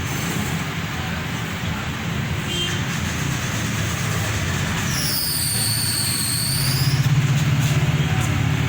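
Steady low motor rumble with a broad hiss, like a running engine or nearby traffic. About five seconds in, a brief high-pitched whine dips and rises in pitch while the rumble swells slightly.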